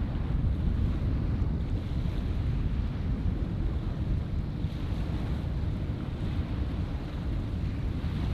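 Steady, low rumbling wind noise buffeting the microphone, with no distinct onset.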